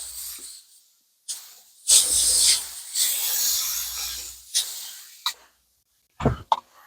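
Shovel scraping and stirring concrete mix in a plastic mixing tub, heard as two stretches of hissing, scraping noise. A few sharp knocks follow near the end.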